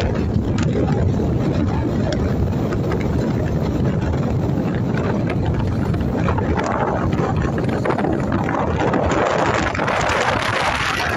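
Steady wind buffeting the phone's microphone on the open deck of a ship under way, over the low rumble of the vessel and the wash of the sea along its hull.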